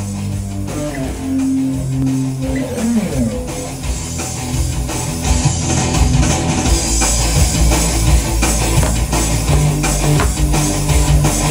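Strat-style electric guitar playing A minor scale runs over a rock backing track with drums. It starts on held notes with one note bent up and back about three seconds in, then the runs get faster and busier.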